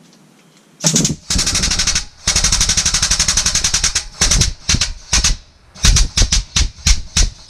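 Air-over-hydraulic pump of a shop press rattling in rapid pulsing bursts with an air hiss as it drives the ram, pressing a new wheel bearing into a hub. It starts with one long run about a second in, then a series of short bursts near the end.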